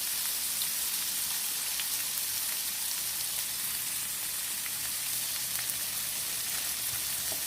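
Chicken breasts frying in hot olive oil in a pan: a steady sizzle with small scattered crackles and pops.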